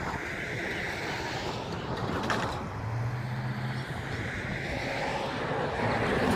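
Road traffic going by: a steady rush of tyres and engines. A brief sharp sound comes about two seconds in, and a low engine hum runs for about a second shortly after.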